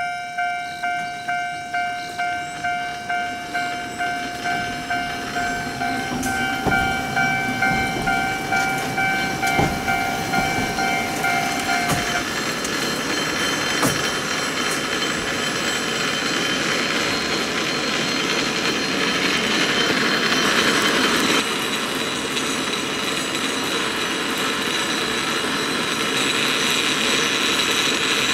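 Japanese level-crossing bell ringing rapidly at about two strokes a second, stopping about 12 seconds in. The Ikoma Cable Line funicular car then rolls through the crossing with a steady rumble and a few clicks.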